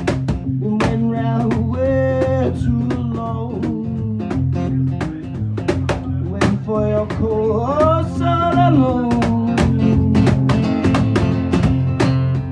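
Live acoustic music: a strummed acoustic guitar with percussion keeping a steady beat, and a voice singing two phrases over it.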